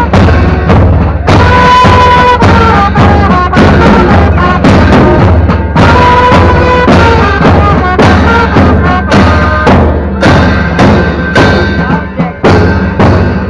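A marching brass band playing loud and close: trumpets carry a melody over a steady beat of bass drum and crash cymbals, about two beats a second.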